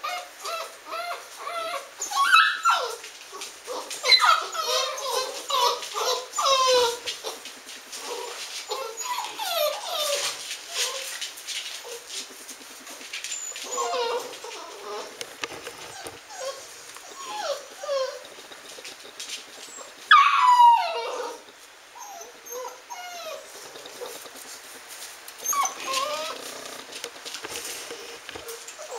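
Labrador retriever puppy whining and whimpering in a string of short, high cries. A louder, longer whine falls in pitch about twenty seconds in.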